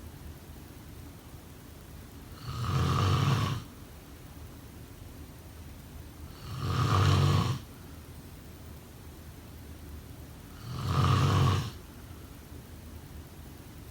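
A sleeper snoring in a steady rhythm: three loud snores about four seconds apart, each lasting about a second, with a quieter steady hiss between them.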